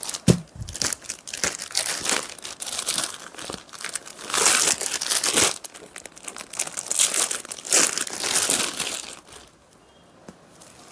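Clear plastic saree packet crinkling and rustling as it is handled and opened, in irregular bursts, loudest about halfway through and dying down near the end.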